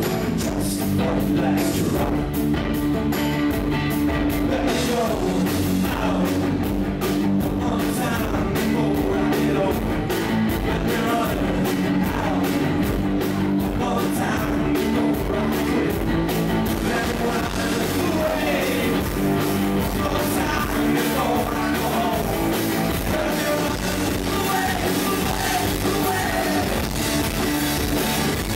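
Live rock band playing: distorted electric guitars, bass and a drum kit with a steady beat.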